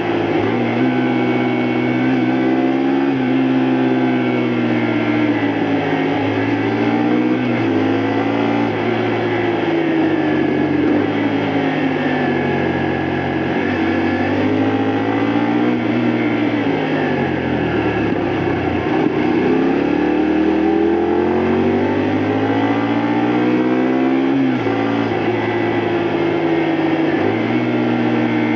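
Honda Varadero XL125V's 125 cc V-twin engine under way on the road, its revs climbing and then dropping back again and again as the gears change. About two-thirds of the way through the engine falls to low revs, then pulls back up.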